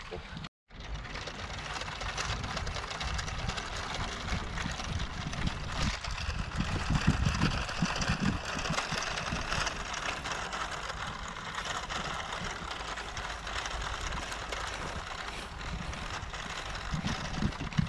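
Small electric Lego motor whirring steadily as it drives the model train suspended from a rope along the line. The sound cuts out briefly just after the start.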